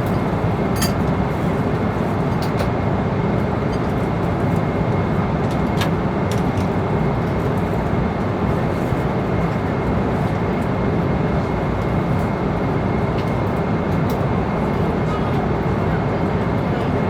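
Steady cabin noise of an airliner in flight: a constant rush of engine and airflow noise, heaviest in the low end. A thin steady high tone runs through it, with a few faint small clicks.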